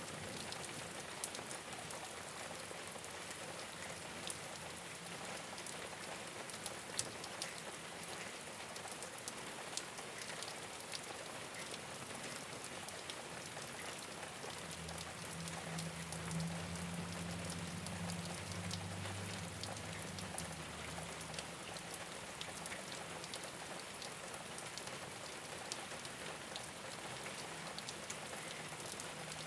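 Steady rain falling on a rooftop: a dense even hiss with individual drops ticking through it. About halfway through, a low droning hum comes in for several seconds and then fades.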